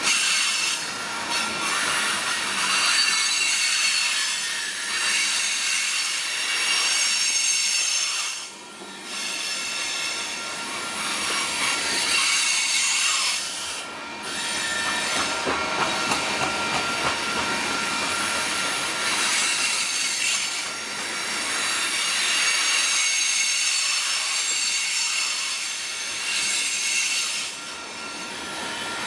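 Freight train of coal hopper cars rolling past at close range: steady rumble and clatter of wheels on the rails with high-pitched wheel squeal. The squeal dips briefly twice, about a third of the way in and again near the middle.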